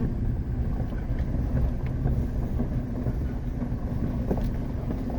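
Dump truck's engine running steadily, heard inside the cab as it climbs a steep hill, with a few short knocks and rattles as the truck bounces.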